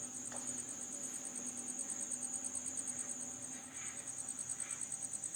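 Crickets trilling steadily: a high, fast, evenly pulsing trill, about ten pulses a second, over a faint low hum.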